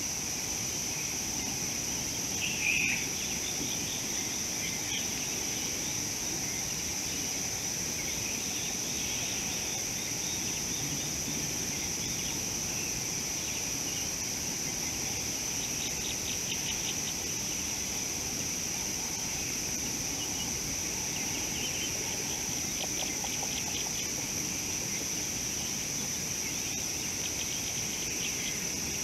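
Steady high-pitched insect chorus outdoors, with a few short bird chirps, the loudest about three seconds in, and a couple of brief runs of rapid ticking later on.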